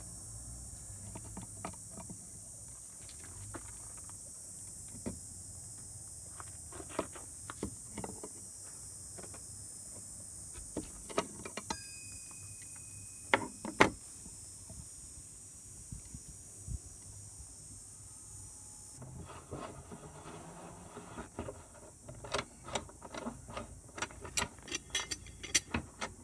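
Pliers clicking and scraping against a scooter wheel rim as a rubber valve stem is pulled through the rim hole. About halfway through come two sharp snaps as the stem pops into its seat. A steady high hiss sits under it all, and scattered clicks and taps turn into a quick run of them over the last several seconds.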